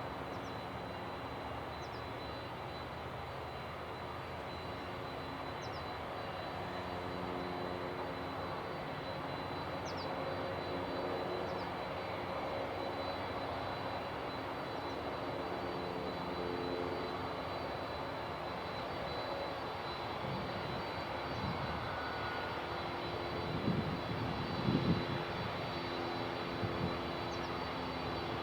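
Steady jet engine noise from a Boeing 767 running at low power on the ground before takeoff. A few brief low thumps come near the end.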